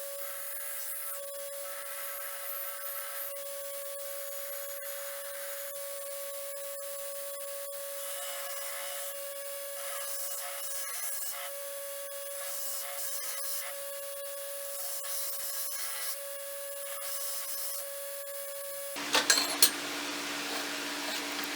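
Abrasive rubbing and rasping on a steel sword blade over a steady motor hum. About nineteen seconds in the sound changes abruptly and three sharp knocks follow.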